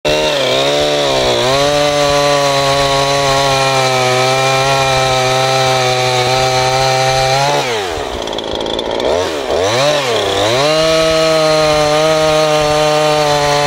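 Husqvarna 340 two-stroke chainsaw, bored out from 41 cc to 51 cc, running at high revs with its bar in a log. About halfway through the revs fall away sharply, dip twice, and climb back to full speed after about three seconds.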